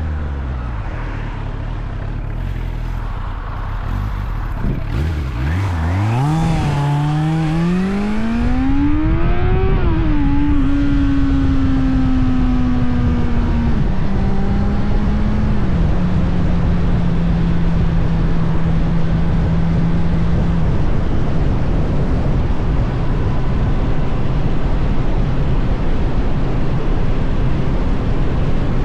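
Suzuki GSF 600 Bandit's air/oil-cooled inline-four engine accelerating hard from low revs with a rising pitch, then upshifting with stepwise drops in pitch and settling into a steady cruise. Wind noise rushes throughout.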